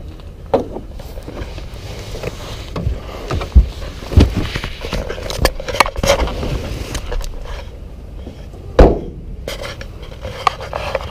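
Handling noise at an open car trunk: rustling and scraping with several sharp knocks and thumps, the loudest a heavy thump near the end.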